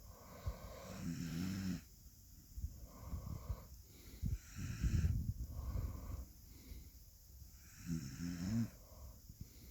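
Dog snoring in its sleep: two low, pitched snores, about a second in and again near the end, with breathy huffing breaths between them.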